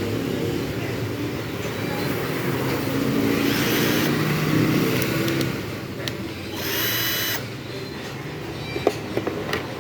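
Cordless 12 V drill running, with a short higher-pitched burst about seven seconds in and a few sharp clicks near the end.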